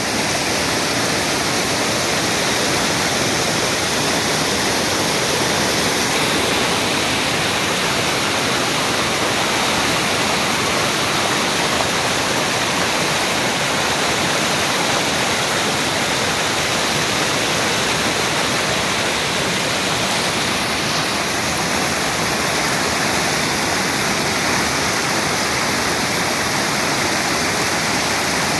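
Fast mountain stream rushing over boulders and a small cascade, a loud, steady sound of white water.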